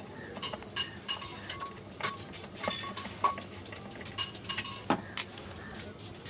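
Irregular light metallic clicks and clinks, several each second, some ringing briefly, the sharpest about two, three and five seconds in: tools and metal parts of a ceiling fan being handled during a bearing repair.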